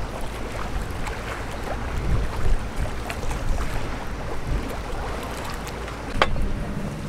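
Wind buffeting the microphone over choppy sea water lapping against a seawall, in uneven gusts. A single sharp click about six seconds in.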